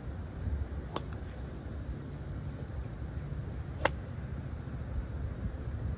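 An iron club strikes a golf ball with one sharp click just before four seconds in, the loudest sound here. A fainter click comes about a second in, over a steady low rumble.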